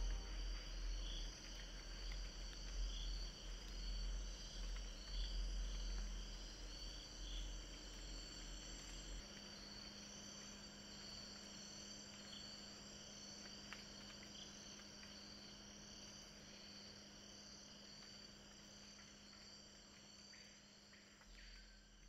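Rainforest insect chorus: a steady high, shrill trilling with a short chirp repeating about twice a second. A low rumble underneath stops about nine seconds in.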